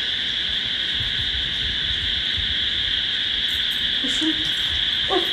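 Steady chorus of crickets, a continuous high shrill drone that doesn't let up.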